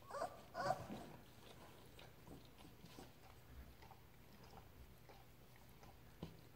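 Yellow Labrador mother nibbling and licking at her own paw: quiet, soft, wet chewing clicks. Two short squeaky whimpers from her young puppy come in the first second and are the loudest sounds.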